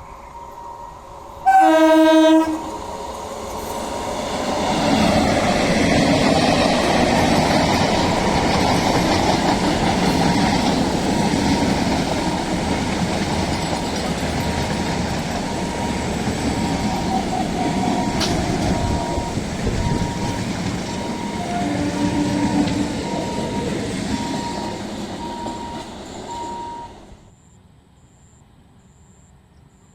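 Train horn blasting once, loud, then a passenger train passing at speed: a steady rumble and clatter of wheels on the rails for about twenty seconds, with a second, shorter horn blast about twenty-two seconds in. The sound cuts off suddenly near the end.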